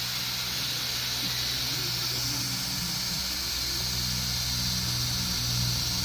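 Engine running steadily under a strong, even hiss, with the low hum growing a little louder about four seconds in.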